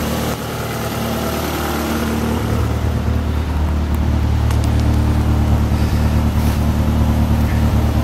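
Toyota AE86 Corolla GTS's 4A-GE four-cylinder engine idling steadily, warm, with its new fuel pump fitted. It is heard at the exhaust and gets louder about two and a half seconds in.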